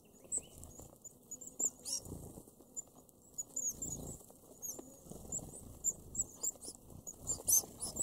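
A feeding flock of red-browed finches giving many short, very high-pitched contact calls, scattered and overlapping, over soft low rustling and fluttering in the seed husks.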